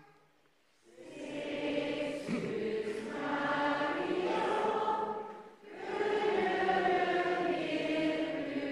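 A church congregation sings the sung psalm response of the Mass in two phrases, coming in about a second in, with a short breath about five and a half seconds in.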